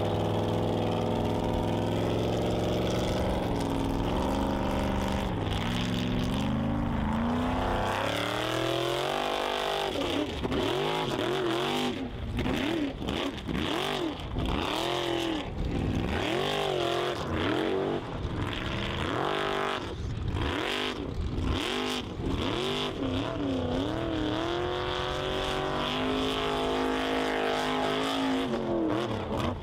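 Formula offroad buggy's engine at high revs, held fairly steady for the first few seconds, then rising and falling in pitch again and again as the buggy climbs a steep dirt hill with its tyres spinning in loose dirt.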